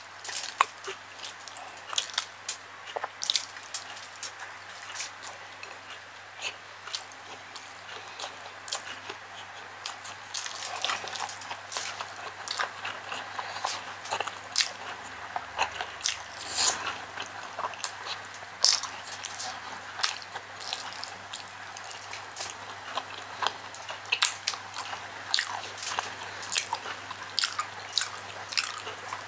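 Close-up chewing and many irregular wet mouth clicks of someone eating chicken liver and gizzard adobo with rice by hand. A faint steady low hum runs beneath.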